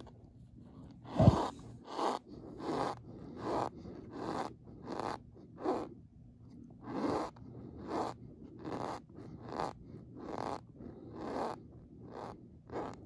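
Cornstarch powder squeaking under handling in about fifteen short strokes, roughly one every 0.7 s. One louder low thud comes a little over a second in.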